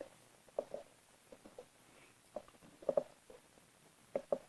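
Faint scattered taps and light knocks from a cardboard product box being handled, about ten small sounds with short gaps between them, a close pair near the end.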